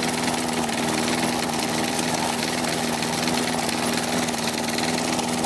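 Tecumseh push-mower engine running at a steady speed while it cuts through leaves. The engine is badly worn, with bad rings and a scored cylinder.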